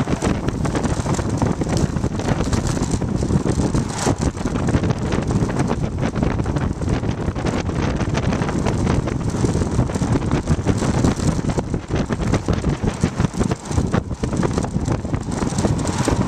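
Wind buffeting the microphone of a bicycle-mounted camera at descending speed, a loud, rough, fluttering rush, over the rumble of road-bike tyres on asphalt.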